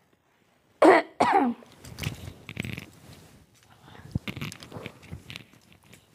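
A woman sick with a fever coughs twice in quick succession about a second in, the first cough the louder. Her heavy blanket then rustles softly as she shifts under it.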